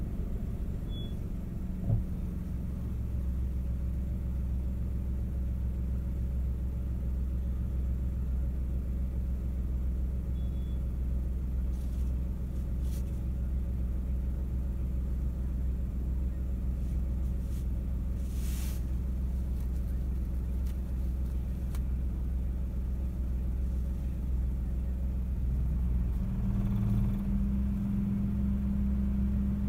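Car interior noise while driving: steady low engine and road rumble, with a few brief clicks and a short rush of noise partway through. A steadier, louder engine hum comes up near the end.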